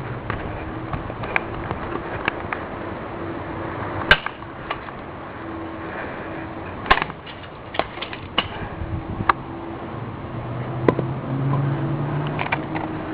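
An alarm clock being struck over and over: scattered sharp knocks and bangs at irregular intervals, a few much louder than the rest.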